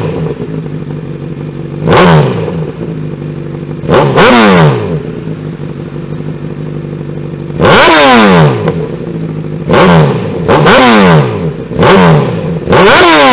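Honda CBR1000RR inline-four superbike with a very loud exhaust, revved at a standstill. It gives about eight sharp throttle blips, one held for about a second partway through, and each blip falls back to idle between them.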